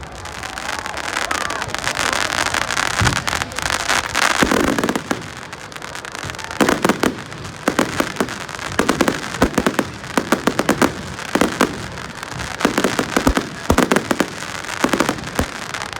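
Fireworks going off: runs of sharp bangs and crackles in quick succession, coming thicker in the second half.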